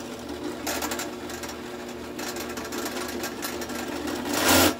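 Benchtop drill press motor running steadily while a worn countersink bit cuts into a wooden block. There is a brief cut about a second in and a louder cut just before the end.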